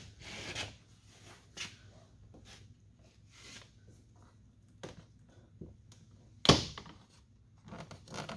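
Hands working loose plastic trim on a car's interior door panel: scattered small clicks and rustles, then one loud sharp click or knock about six and a half seconds in.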